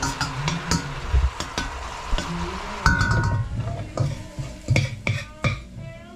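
Metal slotted spatula scraping and clinking against a stainless steel wok as red onion and pepper sizzle in oil, with a brief metallic ring about halfway through. The sizzling thins out in the second half while the spatula keeps clicking.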